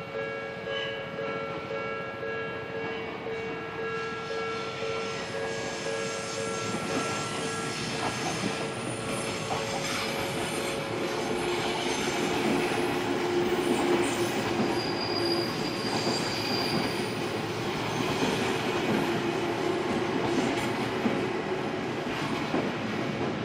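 A level-crossing warning bell repeats its ringing tone, then an Odakyu Line electric commuter train passes through the crossing. The train gets louder from about a third of the way in to a peak around the middle, with a steady whining tone, and it is still running past near the end.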